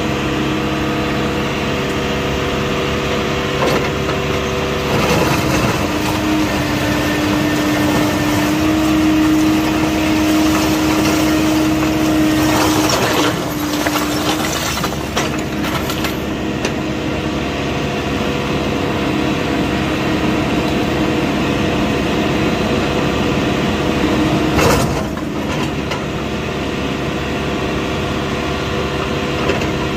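John Deere backhoe loader's diesel engine running, speeding up about five seconds in as the backhoe arm works and settling back after about fourteen seconds. Bricks clatter and scrape under the bucket a few times, around the middle and once near the end.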